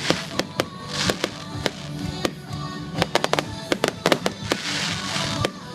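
Fireworks finale: many rapid, irregular bangs, with swells of crackling hiss about a second in and again near the end, over music.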